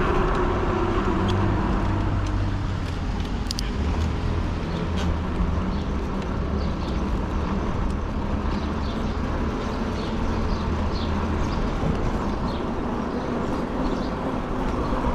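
Fat-tire e-bike with a fat snow-bike tire rolling on pavement: steady road and tire noise with a low hum, and a tone that slides down in pitch in the first couple of seconds.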